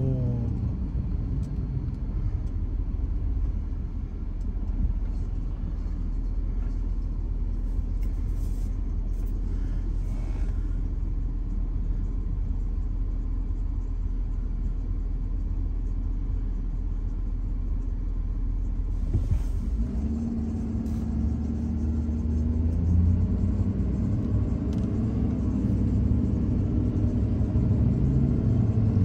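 Pickup truck towing a car-hauler trailer on the move: a steady low engine and road rumble. About twenty seconds in, a clearer engine note comes in and climbs as the truck speeds up.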